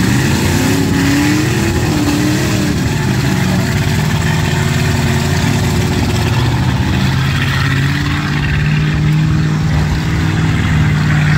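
Demolition derby cars' V8 engines running loud, one revving up and down in the first couple of seconds, then engines holding a steady drone.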